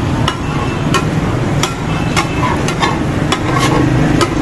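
Metal spatulas clanking and scraping on a large steel tawa griddle, sharp strikes about twice a second at uneven intervals, over the sizzle of chicken liver and gizzards frying in masala. A steady low hum runs underneath.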